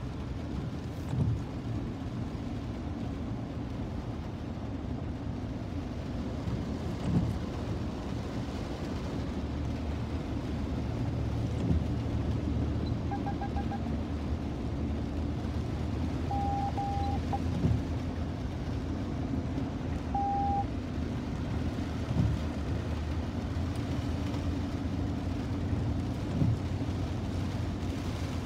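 Steady low rumble of a car driving through floodwater, heard from inside the cabin, with a thump every few seconds. A few short beeps sound in the middle.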